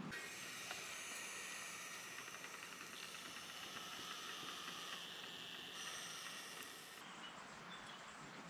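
Food sizzling on a hot grill: a faint, steady crackling hiss that changes about seven seconds in.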